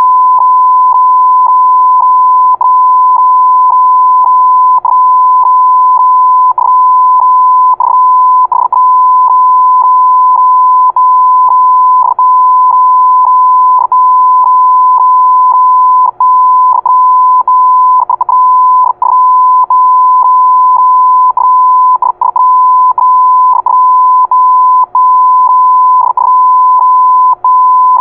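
Morse code sent as a single steady electronic beep tone, keyed on and off in an irregular pattern: the tone stays on for long stretches and breaks off briefly many times.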